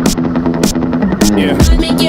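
Electronic dancehall instrumental: a steady synth pad with a regular hi-hat beat, a heavier bass-drum pattern coming in near the end.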